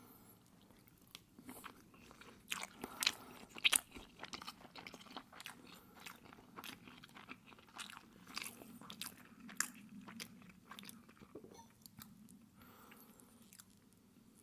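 Close-miked chewing and biting of a syrup-soaked pancake: a quick run of sharp, wet mouth clicks and smacks, loudest about two to four seconds in, thinning out after about ten seconds.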